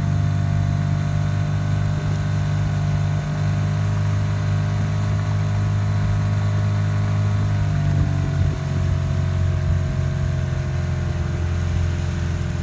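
Outboard motor of a coaching launch running steadily at low speed, its pitch dropping slightly about eight seconds in.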